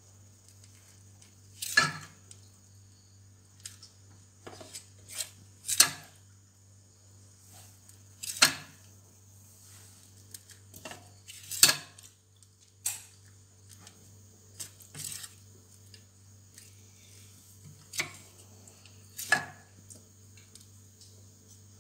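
Metal palette knife clinking and scraping against a steel plate while scooping up grated white chocolate flakes and pressing them onto the side of a cake: about a dozen sharp clinks, irregularly spaced, over a steady low hum.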